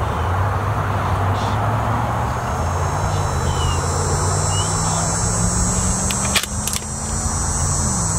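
A motor vehicle engine droning steadily, its pitch climbing slowly and dropping a little near the end. Two sharp clicks come about a third of a second apart, some six and a half seconds in.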